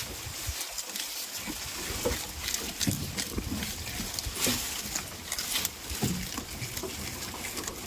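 Goats making short low calls at close range, among rustling and scattered clicks.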